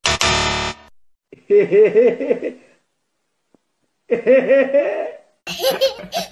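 A buzzer sound effect for under a second marking a wrong answer, then two short bursts of laughter, and near the end a child laughing.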